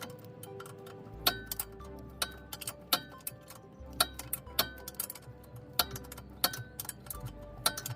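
Background music with a clicky, ticking percussion beat over low bass notes that change every second or so.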